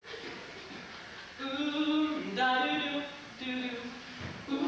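All-male a cappella group singing in close harmony without instruments: a few held chords, the first starting about a second and a half in, each breaking off briefly before the next.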